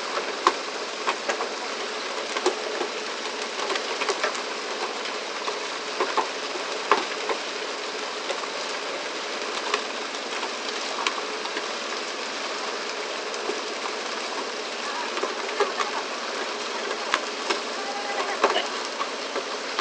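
Steady rushing noise of a pole-and-line fishing boat under way, water spraying along its hull, with scattered sharp knocks and slaps as fish are swung aboard onto the deck.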